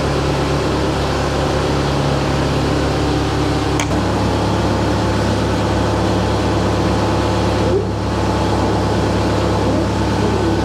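Forklift engine running steadily at idle, a low mechanical hum that drops slightly in pitch about four seconds in.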